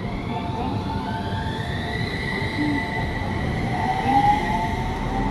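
Level crossing warning alarm sounding steadily while a light rail tram pulls away, its traction motors giving a rising whine from about a second in that levels off.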